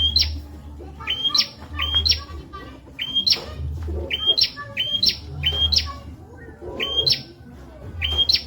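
Prenjak (prinia) calling in quick runs of sharp chirps, each note jumping upward in pitch, in pairs and threes with short gaps, over a low hum.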